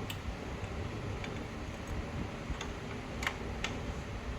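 A few light, scattered clicks and taps from fitting the brake caliper's retaining clip by hand, over a low steady hum.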